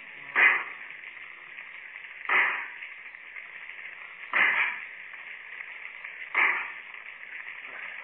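Four heavy hammer blows, about two seconds apart, each a sharp knock that dies away quickly: a radio-drama sound effect of men hammering at twisted railway couplings, on an old narrow-band radio recording.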